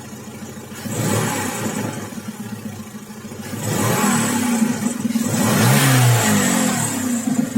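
Volkswagen Golf Mk4 engine revved twice, briefly about a second in and longer from about three and a half seconds. A thin high whistle from under the hood comes in with each rev.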